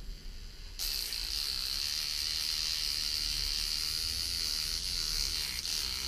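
Beard trimmer motor with its cutting head removed switches on about a second in and buzzes steadily at a high pitch. Its vibration shakes the screwgate carabiner hanging beneath it, winding the gate sleeve closed.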